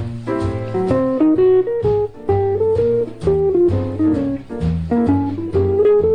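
Instrumental music: a plucked guitar plays a quick run of short notes over a bass line.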